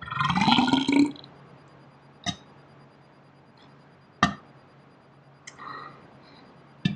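A man's burp lasting about a second, its pitch rising slightly, followed by three sharp clicks or knocks about two seconds apart.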